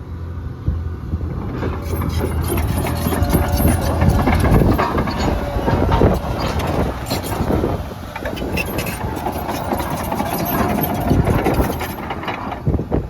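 John Deere 950J crawler dozer's Liebherr diesel engine running hard as the machine pushes dirt, with heavy clanking and rattling from its tracks and blade from about two seconds in until near the end, and a thin high whine over it.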